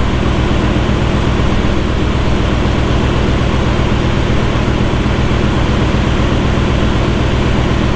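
Audi RS6's twin-turbo V8 idling steadily through its Akrapovič exhaust, an even low hum.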